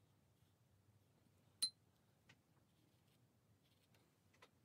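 Near silence of room tone, broken about a second and a half in by one short, ringing clink of a paintbrush tapped against a hard container, with a couple of faint ticks later on.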